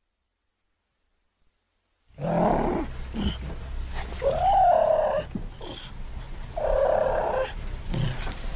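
Cougar calling: after about two seconds of silence, three short calls, the middle one a pitched cry that rises and falls, over a steady low hum.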